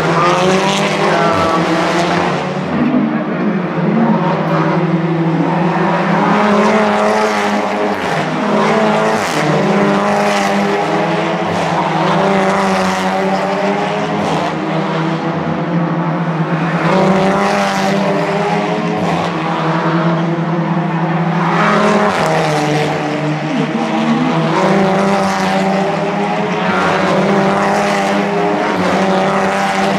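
Audi TT Cup race cars' turbocharged four-cylinder engines running hard through a corner, several at once. The engine notes keep rising and falling as the cars brake, shift gear and accelerate away.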